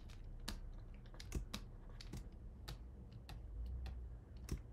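Computer keyboard keys clicking at an irregular pace, about a dozen clicks, over a steady low hum.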